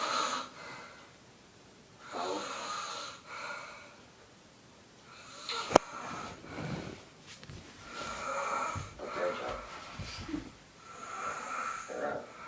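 Snoring: a breath drawn in and let out about every three seconds. A single sharp click about six seconds in is the loudest sound.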